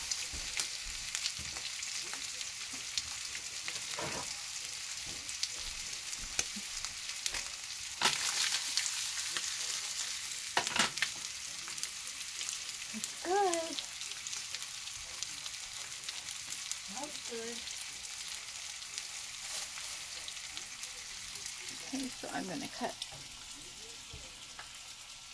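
Fish fillets frying in butter in a nonstick skillet: a steady sizzle with dense crackling, broken by a few sharper clicks.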